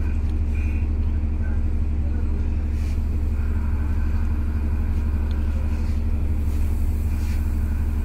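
Ship's machinery running with a steady, unchanging low drone and hum.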